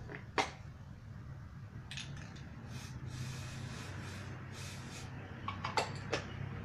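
Aerosol spray paint can hissing in a few short bursts over about two seconds, with sharp clicks and knocks from the can and tools being handled before and after.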